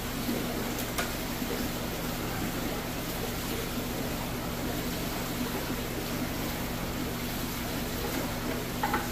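Steady hum and hiss of aquarium pumps and filters running in a fish room. There is a faint click about a second in and a short squeak near the end.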